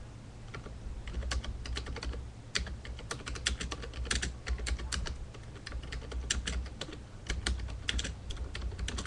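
Typing on a computer keyboard: quick, irregular runs of key clicks, as an address is entered.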